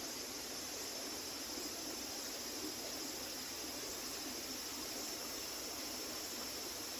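Steady rush of water at a turning water wheel, with insects chirring steadily in a high band over it.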